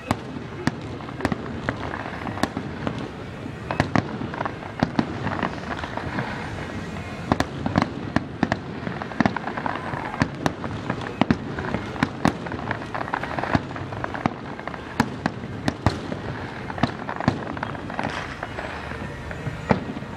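Aerial fireworks display: shells bursting in a rapid, irregular barrage of sharp bangs, several a second at times, over a continuous noisy wash between them.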